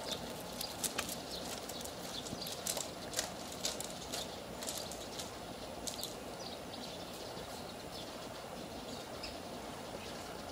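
Outdoor early-morning ambience: a steady background hiss with many short, irregular clicks or chirps through the first several seconds, thinning out towards the end.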